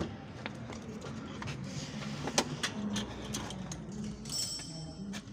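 Clinks and knocks of metal tools being handled at a car's wheel, the sharpest knock about two and a half seconds in, with a short hiss near the end.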